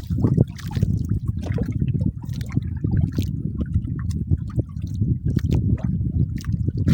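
Water sloshing and lapping with many quick irregular slaps and splashes, a low churning sound.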